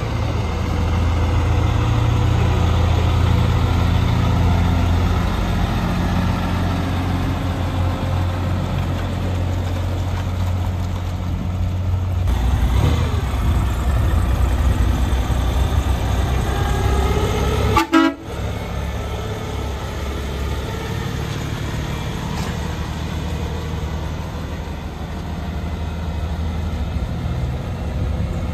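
Heavy trucks' diesel engines running with a steady deep rumble, and truck horns tooting over them. There is a sudden break in the sound about two-thirds of the way through.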